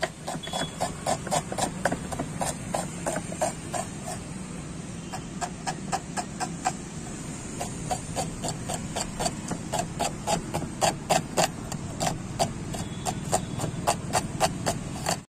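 Knife chopping red onion on a wooden chopping board: a quick, even run of sharp strokes, about four a second, over a steady low hum.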